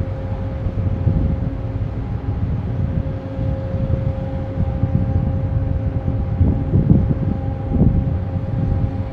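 Large container ship passing close by under way: a steady, gusty low rumble with a constant hum, mixed with wind buffeting the microphone.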